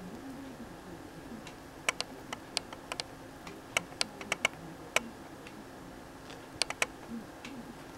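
Budgerigar nibbling fresh chickweed: sharp, irregular clicks of its beak snipping and crunching the leaves and stems, coming in quick little bunches.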